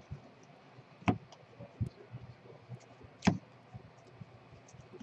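Baseball cards and packs handled on a tabletop: a few sharp taps and clicks, the loudest about a second in and again a little past three seconds in.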